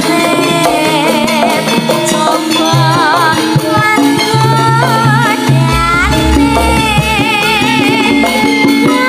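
A sinden, a female Javanese singer, singing through a microphone, holding notes with a wide, wavering vibrato. Band accompaniment plays underneath with low bass notes.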